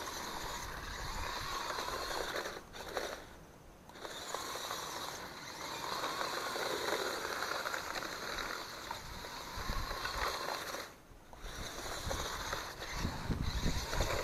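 WLtoys Crawler King 6x6 RC truck's electric drive motor and gears whirring as it crawls over rocks and brush, with the crunch of gravel under its wheels. It pauses briefly twice.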